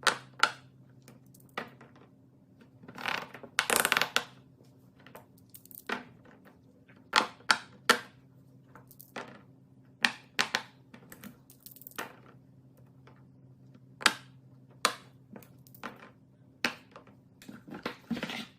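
Small hard fidget toys being handled, clicking and clacking at irregular intervals, with a longer crunching rattle about three to four seconds in. A faint steady hum runs underneath.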